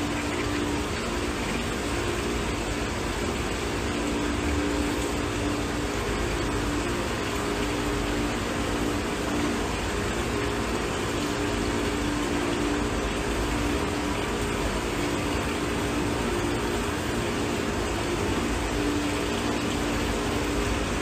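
A steady machine whir running throughout, with a low hum that wavers in and out underneath.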